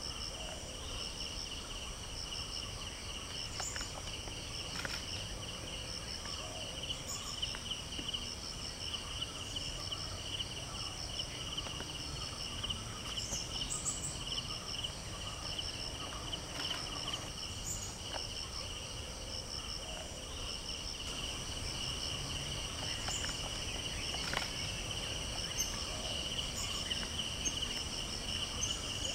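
Insects trilling in a steady chorus: a continuous pulsing buzz and a higher chirp repeating in quick runs. Now and then a faint short tick or crack.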